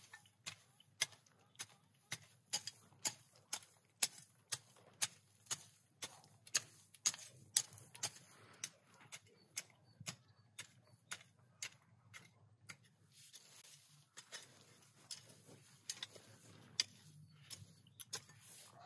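Garden hoe working the soil of a raised bed, its blade striking the earth with a short, sharp tick about twice a second in a steady rhythm.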